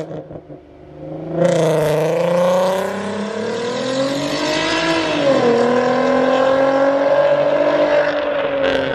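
The R32's engine pulling the car under acceleration: its note climbs slowly, drops sharply about five seconds in, then holds and rises gently again.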